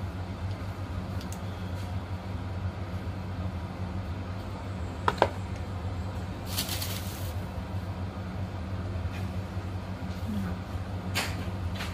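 Small handling sounds of food being threaded onto bamboo skewers over a plate: a sharp click about five seconds in and a brief rustling hiss a second or so later, over a steady low hum.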